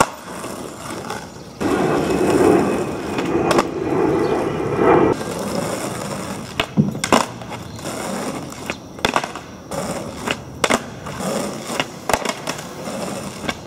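Skateboard wheels rolling over rough asphalt, the rumble strongest from about two to five seconds in, then a string of sharp clacks as the board's nose pops off the street for nollie big heels and the board slaps back down on landing.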